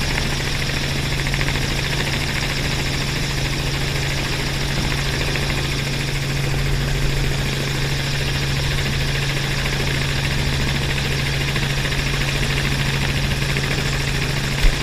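Robinson R44 helicopter's engine and rotors running steadily in flight, heard from inside the open-doored cabin with a strong steady low hum under a wide rushing noise. A single short knock comes near the end.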